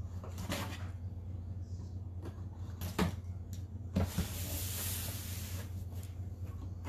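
Knife slicing the packing tape on a cardboard box. There are a few sharp knocks of the box and knife, then one longer scraping slice of about a second and a half, starting about four seconds in.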